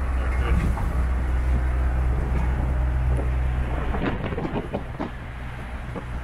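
Engine and road rumble of a pickup-truck taxi (songthaew), heard from its open-sided rear bench: a steady low drone that eases about four seconds in, then short rattles and knocks from the body.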